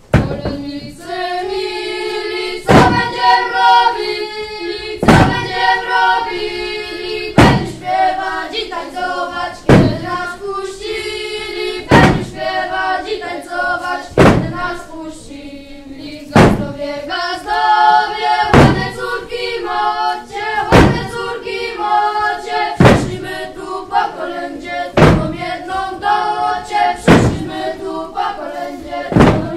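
A group of children singing a carol together, with a loud thud on the wooden stage floor about every two seconds, keeping time with the song.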